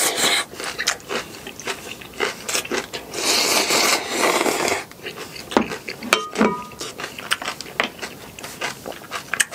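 A person eating clam kalguksu (knife-cut noodle soup): a loud slurp of noodles at the start, a longer slurp of broth drunk from the bowl about three seconds in, and then chewing with wet lip-smacking clicks.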